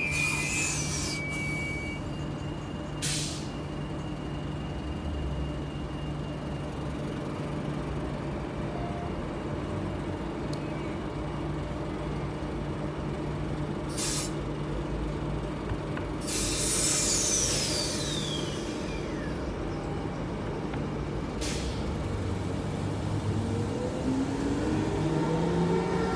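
Transperth A-series electric train standing at a station with a steady hum from its equipment, broken by short hisses of air from its pneumatic brakes and a longer hiss with a falling whistle about two-thirds through. Near the end a rising whine sets in as the traction motors start the train moving.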